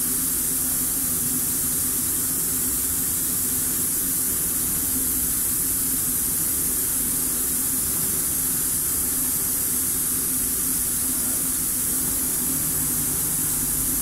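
Steady, even hiss with a low hum underneath, unchanging throughout; no bird calls or other distinct sounds stand out.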